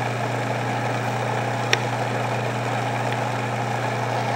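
Electric food processor motor running steadily, pureeing a thick banana pie filling, with a steady hum.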